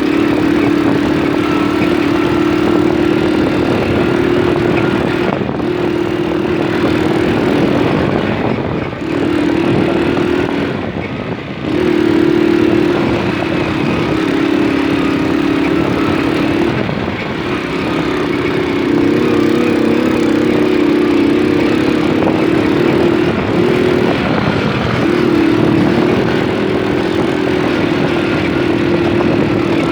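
Moped engine running while riding, a steady note that dips out briefly a few times in the first dozen seconds as the throttle eases, over a steady rushing noise.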